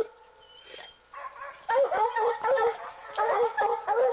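Treeing Walker hounds barking and bawling in short, repeated calls, starting about a second in, as they are turned out on a fresh mountain lion track.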